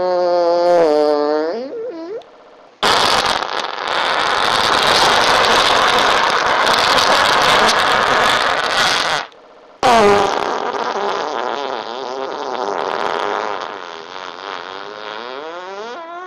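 A run of three farts: a short pitched one at the start, then a long, noisy, hissing one lasting about six seconds, then a long pitched one that wavers up and down and trails off.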